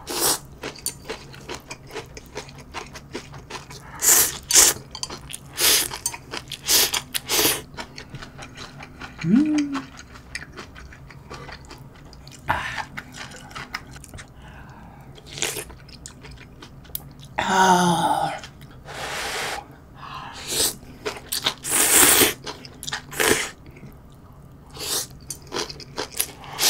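Instant ramen noodles being slurped from the bowl in a string of short slurps, with chewing in between. A brief hum is heard twice, about nine seconds in and again past the middle.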